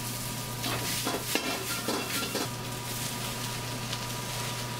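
Bean sprouts and shredded carrot dropped by hand into hot oil in a wok, crackling and sizzling as they land. The crackle is thickest for the first couple of seconds, then settles to a steady frying hiss.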